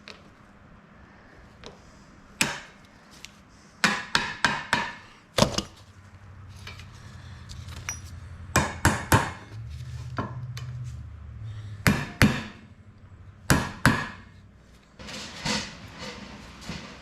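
Sharp knocks and clanks of hand tools at work, irregular and in quick clusters of one to four strikes, like hammer blows. A low steady hum sits underneath for several seconds in the middle.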